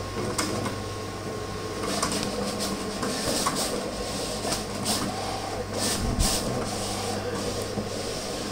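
Vinyl cutting plotter working on a sheet of printed stickers: a steady motor hum with repeated whirring sweeps and short clicks as the cutting head and the media shuttle back and forth.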